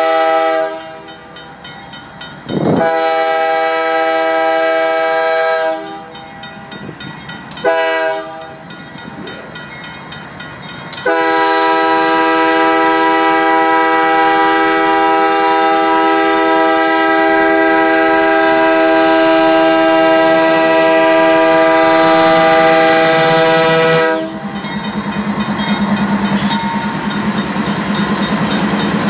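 Union Pacific 5608's air horn blowing the grade-crossing signal as a chord of several notes: the tail of a long blast, then a long, a short, and a final long blast of about thirteen seconds. The crossing's mechanical bell rings steadily between the blasts. Near the end the locomotive's diesel engine rumbles past close by.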